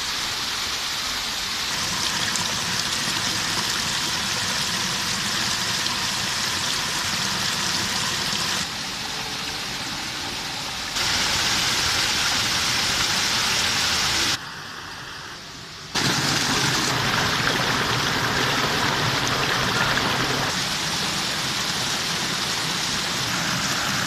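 Small waterfall in a rocky mountain stream: water rushing and splashing over boulders with a steady hiss. Its loudness changes abruptly several times, with a brief quieter dip a little past the middle.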